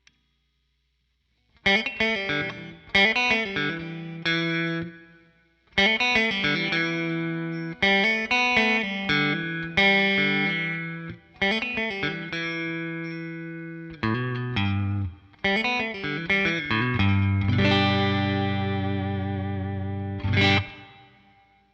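Electric guitar with Zexcoil Legacy Signature P90-format pickups, played through a Helix Twin Reverb amp model with no other effects. After a brief silence, a series of strummed chords with short pauses between them, ending on one long chord that rings out and fades.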